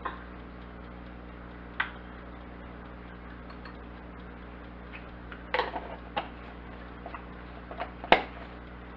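Plastic spoon and mayonnaise jar knocking against a small glass bowl and cutting board as mayonnaise is scooped out: a few scattered light clicks and knocks, the loudest about eight seconds in, over a steady low hum.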